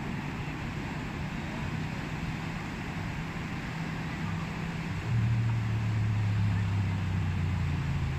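An engine running with a steady low hum over a rushing noise, getting louder about five seconds in.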